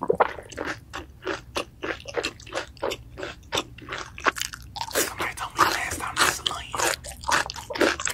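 Close-miked chewing of crunchy fried food: an even run of crisp crunches, about three or four a second, growing louder and busier about halfway through as a fresh bite goes in.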